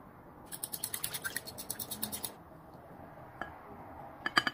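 Salt grinder being twisted over the bowl: a fast run of ratcheting clicks lasting about two seconds. A few sharp knocks follow near the end.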